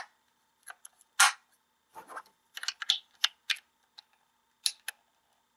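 Scattered sharp clicks and light knocks of hard plastic as batteries are fitted into a Kamen Rider Ryuki Dragvisor toy gauntlet, irregular, the loudest about a second in.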